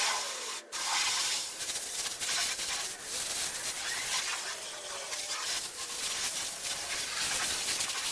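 Garden hose spraying water onto a jon boat's hull to rinse off cleaner, a steady hissing spray with a brief break about half a second in.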